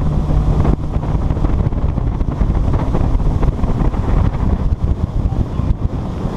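Motorboat running at speed: a steady engine drone under heavy wind rushing over the microphone.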